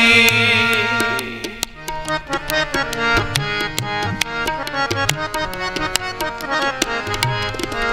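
Sikh kirtan instrumental interlude: harmoniums playing the melody over a steady tabla rhythm, with the last held sung note fading out about a second in.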